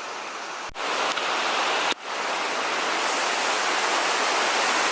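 Waterfall rushing water, a loud steady hiss. It breaks off twice for an instant, just under a second in and about two seconds in, and comes back a little louder each time.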